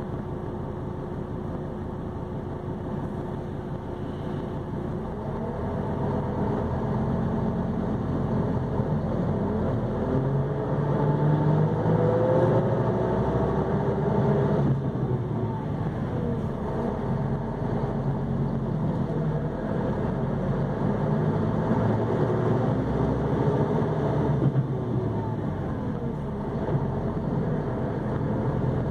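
Mercedes-Benz OH-1628L bus's rear-mounted diesel engine running while the bus is under way. It gets louder about six seconds in, then rises and falls in pitch several times.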